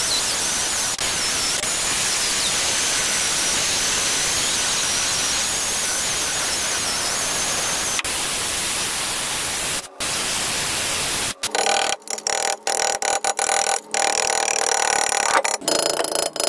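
Die grinder spinning a large carbide burr against the cast-iron Ford 300 straight-six cylinder head, grinding down the tapered pins stitched into a cracked valve seat. A steady grinding hiss with a high whine that wavers as the burr loads up, broken off briefly about ten seconds in; over the last five seconds the sound comes in short, broken bursts with a ringing tone.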